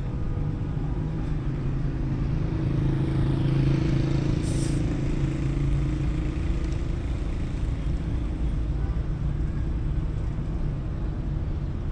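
A motor vehicle's engine running close by, a steady low hum that swells a few seconds in. There is a brief high hiss near the middle.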